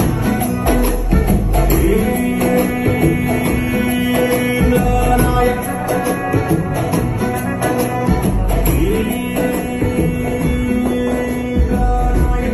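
Music played loud through a JBL PartyBox 710 party speaker, with heavy deep bass, sustained notes and busy high percussion.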